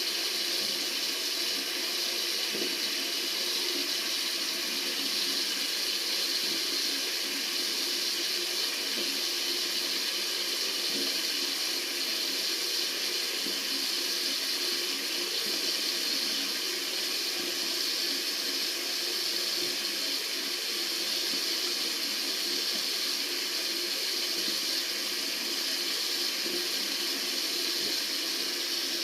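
Tap water running steadily from a faucet: a continuous, even rushing hiss, brightest in its upper range.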